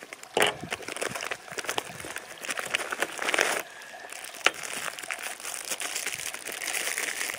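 Plastic MRE meal-bag packaging crinkling and rustling as the packets are pulled out and handled, with scattered crackles, a denser rustle around three seconds in and a sharp click about four and a half seconds in.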